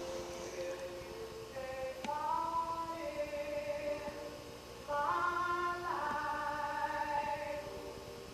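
Music: a slow melody of long, steady held notes that step from one pitch to the next, getting louder about five seconds in.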